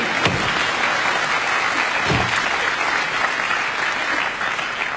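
Studio audience applauding, a steady dense clatter of clapping.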